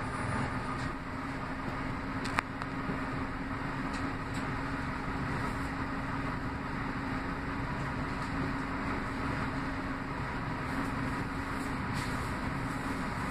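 Orion VII CNG city bus idling while stopped, heard from inside the passenger cabin: a steady engine rumble with a constant low drone. A single sharp click sounds about two seconds in.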